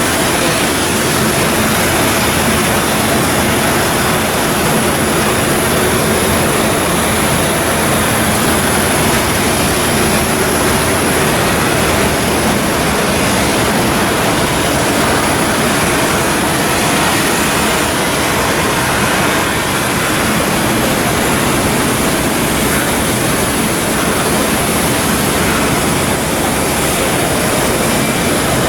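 Steady, loud machinery noise that runs on without a break.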